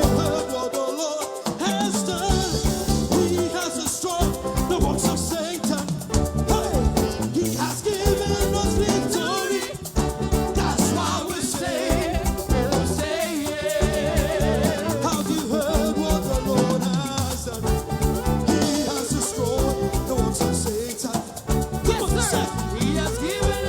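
Live gospel praise music: a band playing an upbeat, Latin-flavoured groove with a steady beat and a singing voice over it.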